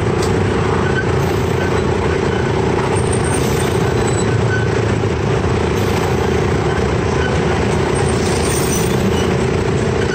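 Chance Rides miniature amusement-park train running along its track: a steady engine hum over the rumble of the cars and wheels.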